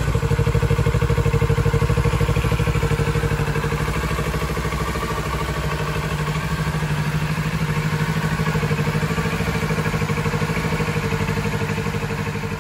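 Kawasaki Z650RS's 649 cc parallel-twin engine idling steadily through its stock exhaust, fading out near the end.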